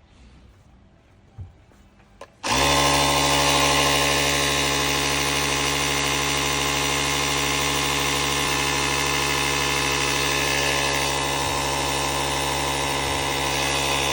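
Car vacuum-compressor unit switched on: a couple of faint clicks, then about two and a half seconds in its electric motor starts and runs steadily at a constant pitch.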